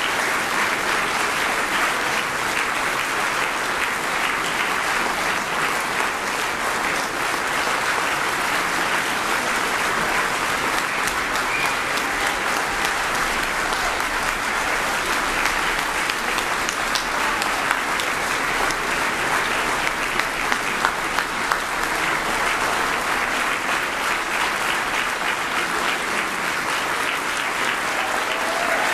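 Audience applauding steadily, a dense patter of many hands clapping, with a few sharper single claps standing out past the middle.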